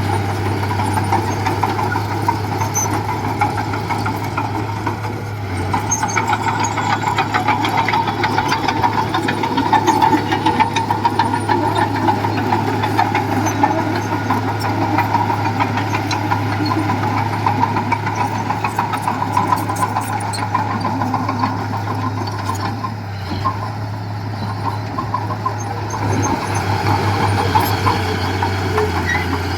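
Diesel engine of heavy construction machinery, a mini bulldozer or dump truck, running steadily with a constant hum and mechanical clatter.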